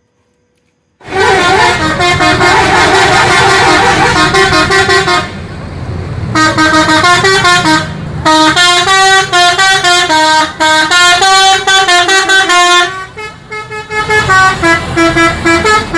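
A musical multi-note bus horn playing a stepping tune of loud, held horn notes, with a short break about five seconds in.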